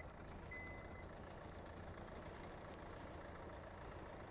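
Hyundai Tucson's powered tailgate closing: a short, high warning beep about half a second in, over a faint steady low hum.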